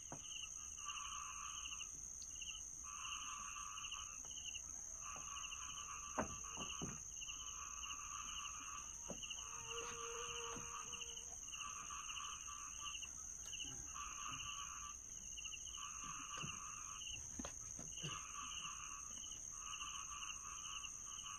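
Rice-field night chorus: small frogs calling over and over in bouts about a second long, over a steady high-pitched insect drone, with a few faint clicks.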